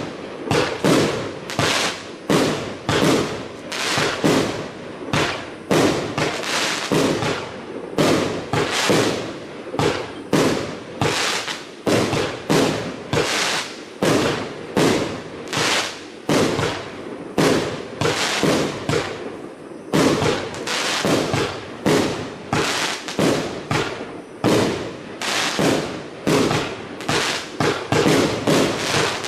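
A 61-shot, 30 mm fireworks cake (Iskra Rausz) firing its shells in a steady run of bangs, about two a second, without a pause.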